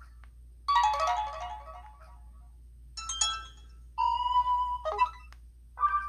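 Ringtone previews playing from an LG Vortex phone's speaker: about four short snippets of different melodic ringtones, each cut off after a second or so as the next one is selected.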